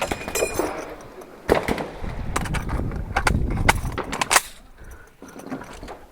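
Several gunshots: a sharp shot about a second and a half in, then a run of shots and their reports between about two and a half and four and a half seconds in.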